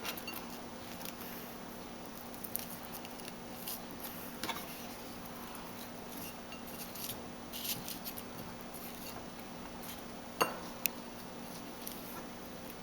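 Faint, scattered taps and clicks of utensils and dishes being handled over a steady low hum, with two sharper clicks about ten seconds in.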